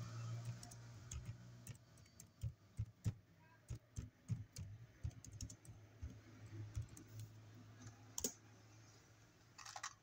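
Typing on a computer keyboard: irregular, quiet key clicks, with a sharper key stroke about eight seconds in.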